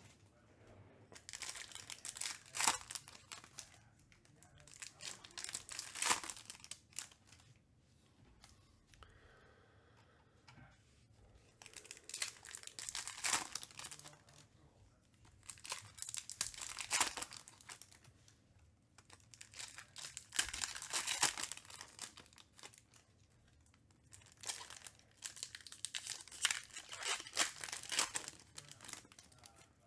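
Foil wrappers of Topps Chrome trading card packs being torn open and crinkled by hand, in bursts of crackling every few seconds.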